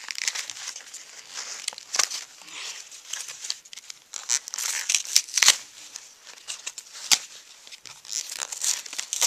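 Pokémon trading-card packaging, cardboard backing and foil booster wrapper, being torn open and crinkled by hand: a steady run of crackling with several sharp, louder rips, the loudest about five and a half and seven seconds in.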